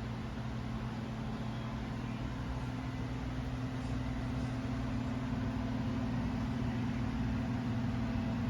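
A steady electrical hum: a low buzz with an even hiss over it.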